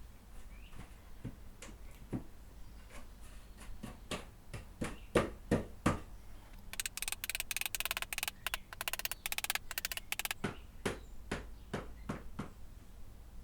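Pieces of wooden trim knocked and tapped against each other as they are fitted together, with the loudest knocks about five seconds in. From about seven to ten seconds a rapid clattering rattle runs in two bursts.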